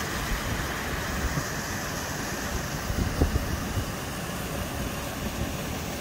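Small waterfall pouring over a rock step into a river pool, a steady rush of water, with a few low thumps about halfway through.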